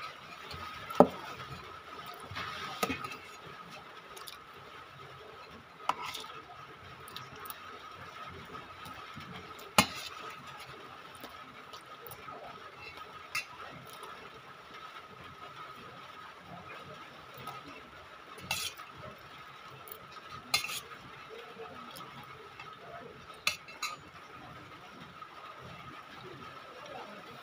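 Eating from a metal plate: scattered sharp clinks and knocks of the plate and hand, about a dozen over the stretch, loudest near the start and near the middle, over a faint steady high whine.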